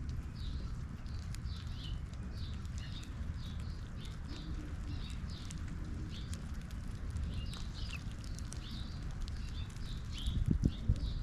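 Small birds chirping repeatedly, short high notes about twice a second, over a steady low rumble. A couple of louder low thumps come near the end.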